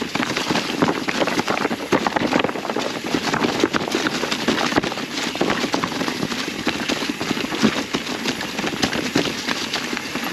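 Mountain bike clattering down a rocky trail covered in fallen leaves: a dense, uneven run of knocks and rattles from tyres, chain and frame striking over rocks.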